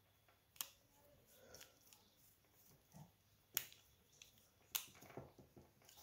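Near silence broken by a few faint sharp clicks and small handling sounds as a small screwdriver tightens the screw terminals of a DC power plug.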